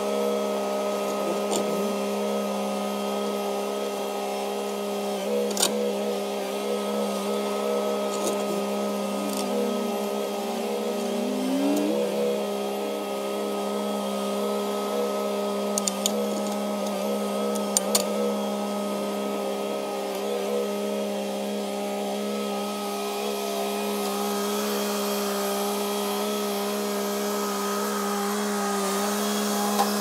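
Kioti DK6010 tractor's diesel engine running steadily under load while it drags a subsoiler shank through the soil, with a few sharp metallic clicks.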